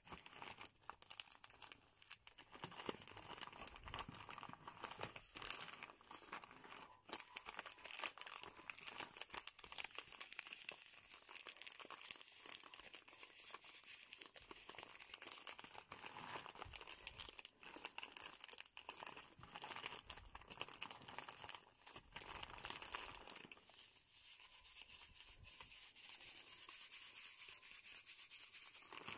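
Crinkling and rustling of a pile of kissel drink-mix sachets as fingers shuffle, squeeze and crumple them: a dense, ongoing stream of small crackles.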